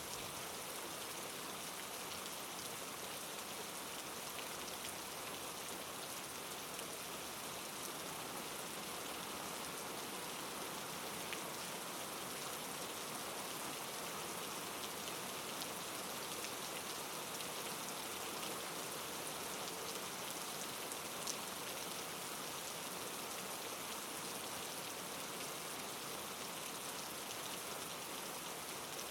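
Steady rain ambience: continuous rainfall with scattered individual drops ticking, no other sound over it.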